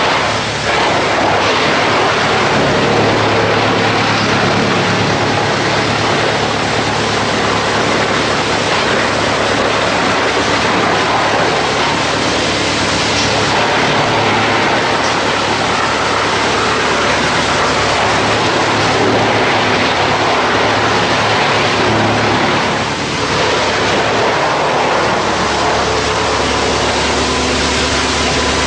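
YMPJ-218 drum wood chipper running: a loud, steady mechanical din with a low hum beneath it, dipping briefly about a second in and again about three-quarters of the way through.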